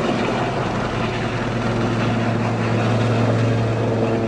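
Air ambulance helicopter flying overhead after lift-off: a loud, steady engine and rotor sound with a strong low hum.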